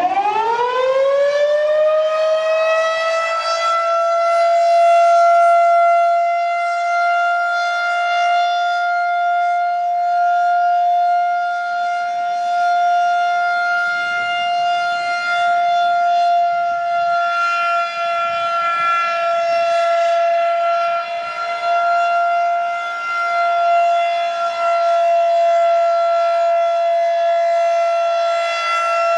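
Federal Signal 2001-130 single-tone rotating electromechanical siren winding up, its pitch rising quickly over the first couple of seconds, then sounding a steady alert tone, swelling and fading slightly in loudness as the siren rotates.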